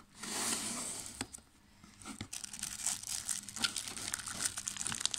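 Packaging being handled during an unboxing: the box and its contents rustle and crinkle, with a steady rustle in the first second, then a run of irregular crackles and clicks.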